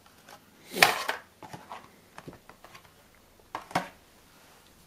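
Boxes and packaging being handled and set down: a sharp knock about a second in, another near four seconds, and light clicks and taps between.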